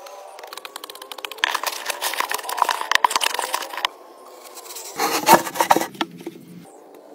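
Crackling and scraping of dry soil being dug and worked by hand, with a faint steady whine underneath in the first half. About five seconds in, a louder, heavier scrape as a plastic pipe is pushed into a hole in the earth.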